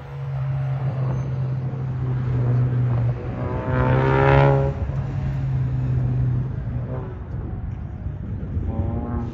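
Turbocharged 2.3-litre four-cylinder engine of a Ford Mustang EcoBoost running hard at autocross. It holds a steady note, then rises in pitch and loudness about four seconds in before dropping back as the driver lifts. It comes back up briefly near the end.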